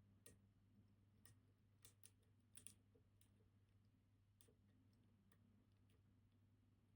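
Faint, irregular clicks of a lockpick probing the levers of a MIWA PR lever lock under tension, testing which levers bind.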